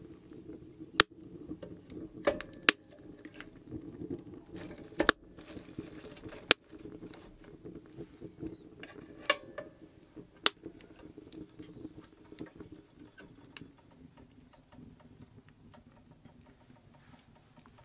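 Wood fire crackling in a Cubic Mini wood stove: irregular sharp snaps, the loudest in the first half and thinning out later, over a low steady hum.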